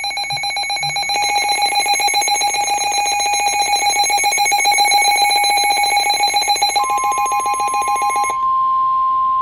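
Emergency alert attention signal: a loud, buzzy, rapidly pulsing alarm tone. About two-thirds of the way through a steady single-pitched tone joins it, the 1050 Hz weather-radio warning tone. The pulsing alarm cuts off near the end and the steady tone carries on alone.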